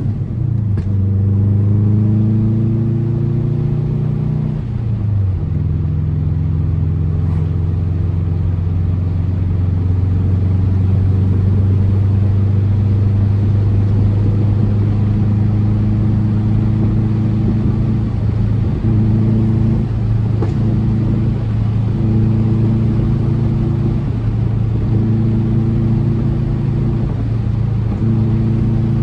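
2004 Subaru WRX's turbocharged EJ flat-four with an Invidia exhaust, pulling up through the revs and dropping sharply at a gear change about 5 s in. It then holds a steady cruising note, with a few brief dips in engine speed in the second half.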